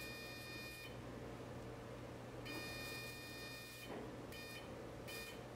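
Electrocautery unit sounding its high activation tone while cautery current is applied to stop bleeding at a skin biopsy site. The tone is held about a second, then for about a second and a half, then comes in two short beeps near the end as the current is switched on and off.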